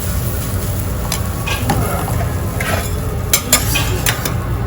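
Okonomiyaki cooking on a teppan griddle: steady sizzling and stirring, with a few sharp metal clicks of utensils in the last second or so.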